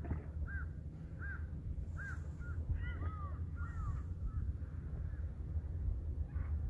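A bird calling: a run of short, evenly spaced calls for the first couple of seconds, then a quicker cluster of falling notes around the middle, after which the calls stop. A steady low rumble runs underneath.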